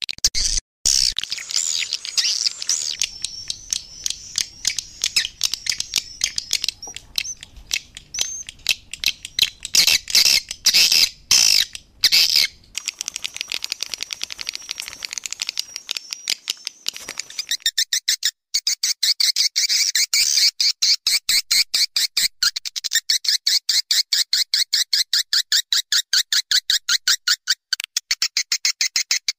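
Swiftlet call recording: swiftlets twittering in high, thin, wavering chirps mixed with sharp clicks. A little past halfway the clicks settle into a fast, even train. It is the kind of call sound played to draw swiftlets into a nesting house.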